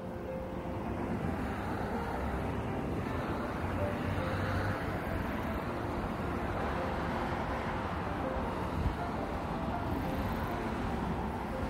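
Steady outdoor rumble and hiss, with faint music notes underneath.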